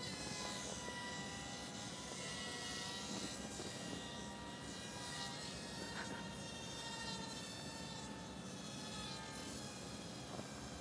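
Brushed electric motor and propeller of a micro RC Cessna (HobbyKing 9 g) buzzing in flight, a steady whine whose pitch drifts slightly with throttle.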